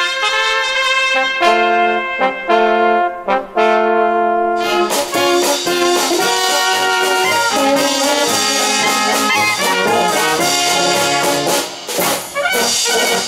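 Brass band (Blasmusik) with clarinet, trumpets and tubas playing an instrumental passage. It opens with a few held chords broken off short, then about five seconds in moves into a fuller, busier stretch that thins out near the end.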